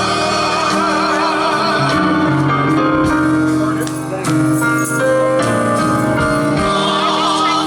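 Live gospel music: a vocal group singing with instrumental accompaniment, held notes with vibrato.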